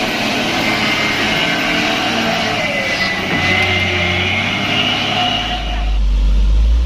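Heavy diesel truck engine running under load on a muddy climb, loud and steady, with a deeper low rumble building about five seconds in.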